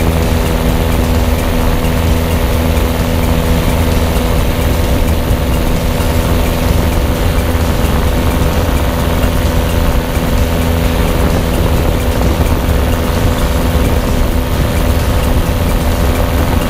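Light aircraft's piston engine and propeller droning steadily in flight, heard from a camera mounted on the plane, with a constant hiss of rushing air over it.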